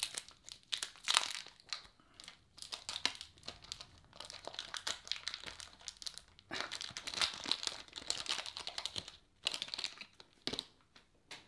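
Foil wrapper of a 1990 Leaf Series 2 baseball card pack crinkling and tearing as it is peeled open by hand. The rustling comes and goes unevenly, with a busier stretch a little past the middle and a couple of sharp crackles near the end.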